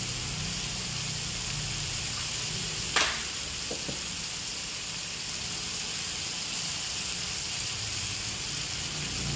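Skin-on chicken pieces frying in oil in a cast-iron skillet over medium heat: a steady sizzle, with one sharp pop about three seconds in and two fainter crackles just after.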